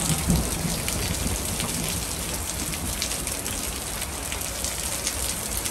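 Small hail mixed with rain falling steadily, with many small ticks of hailstones striking the ground and pavement.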